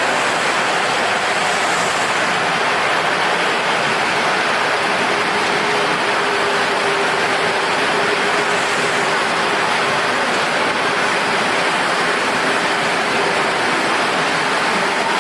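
Workshop machinery running steadily: a dense, even hiss with a faint wavering hum underneath.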